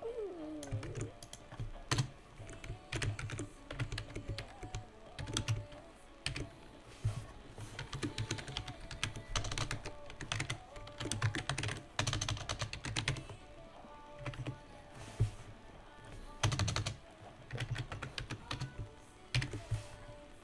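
Typing on a computer keyboard in quick bursts of key clicks with short pauses between them, over background music.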